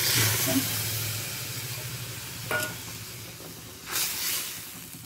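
Water poured into a hot pan of fried masala with dal and radish leaves, hissing loudly at first and fading to a steady sizzle. A short tap comes about two and a half seconds in, and a brief louder hiss just before four seconds.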